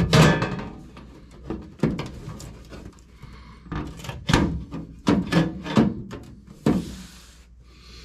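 Bent sheet-steel patch panel being pushed into place and shifted by hand, knocking against the surrounding floor and cab metal in a series of separate thumps, with a short scrape near the end.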